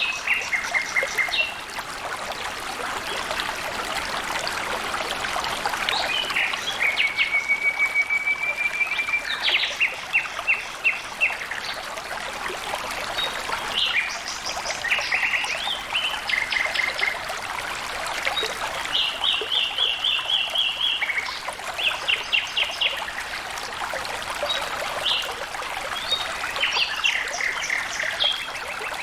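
Flowing water trickling and splashing steadily. Over it, a bird calls again and again every few seconds in quick trains of short high notes, with an occasional drawn-out whistle.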